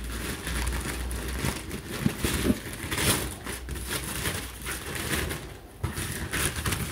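Wax paper rustling and crinkling as it is lifted off the contents of a parcel, in uneven crackling handling noise.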